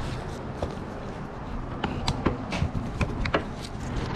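Irregular clicks and light knocks of tools and metal parts being handled during engine work, over a steady low background hum.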